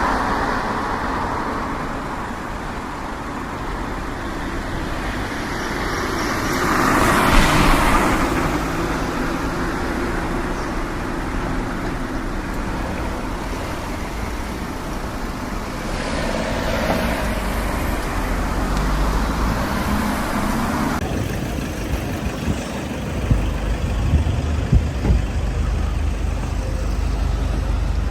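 Road traffic noise: vehicles running, with one passing more loudly about seven seconds in; later a steadier low rumble with a few light knocks.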